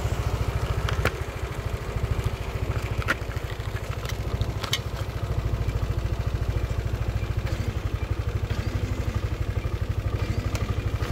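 Small motorbike or scooter engine idling with an even, fast low putter just after starting. A few light clicks sound over it in the first five seconds.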